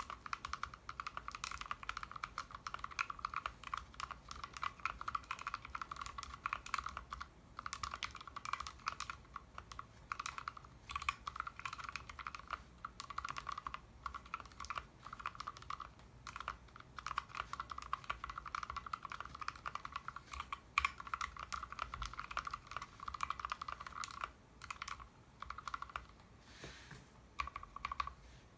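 Continuous fast typing on a custom 60% mechanical keyboard: linear vintage black switch stems in Outemu housings with 62 g springs, lubed with Tribosys 3204, PCB-mounted without a plate in a foam-dampened case. Brief pauses come about seven seconds in and again near the end.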